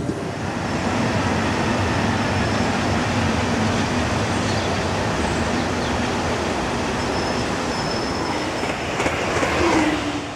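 Electric passenger trains passing on the track, a steady rush of wheel and running noise. Near the end a fast electric multiple unit passes close with a falling whine.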